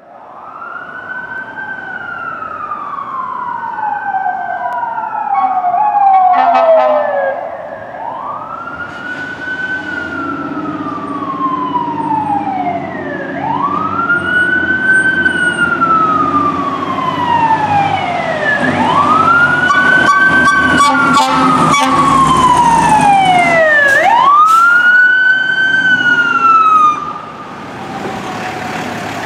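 Fire apparatus sirens wailing, each sweep rising quickly and falling slowly every four to five seconds, at times two sirens overlapping, with short air-horn blasts about six seconds in and again around twenty seconds, over a diesel engine rumble. The sirens cut off suddenly near the end, leaving the engine running.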